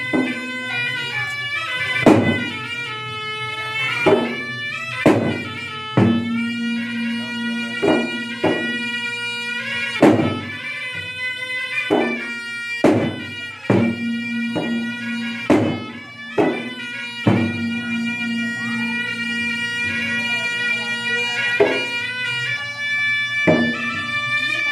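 A pair of large red double-headed gendang drums beaten by hand, with a sharp loud stroke every second or two. Over them a small shawm-type pipe with a flared bell plays continuously in long held notes: traditional gendang ensemble music.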